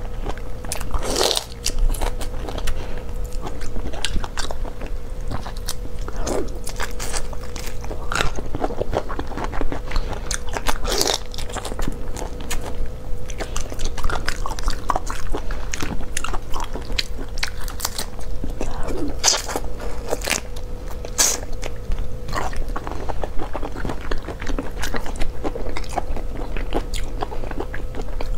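Someone eating raw marinated shrimp: irregular sucking, biting and crunchy chewing of the shells and flesh, with a faint steady hum underneath.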